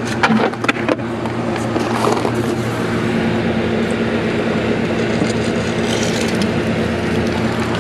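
Pool pump motor running with a steady hum. Footsteps crunch on gravel with a few sharp clicks in the first second.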